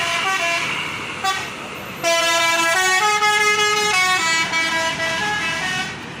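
Telolet multi-tone bus horn playing a melody: quick stepping notes, then a louder held chord about two seconds in, then more stepping notes that end just before the close.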